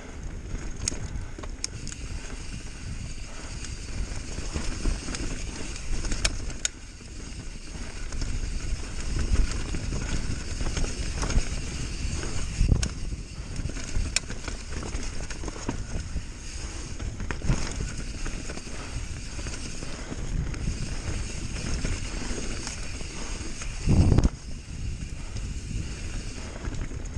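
Bird Aeris mountain bike descending a dirt forest trail: knobbly tyres rumbling over the ground, with sharp clicks and rattles from the bike over bumps and one heavy thump near the end.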